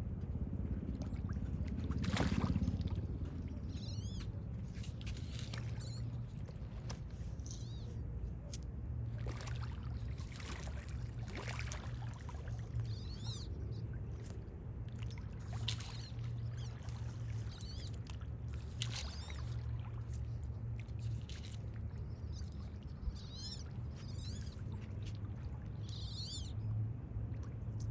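Outdoor ambience: birds calling with short repeated chirps on and off over a steady low rumble, with a few brief splashes in water, the loudest about two seconds in.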